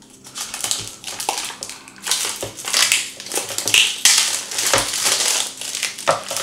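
Plastic packaging crinkling and rustling in uneven surges as a laptop power brick and its cable are unwrapped by hand, with a few sharp handling clicks.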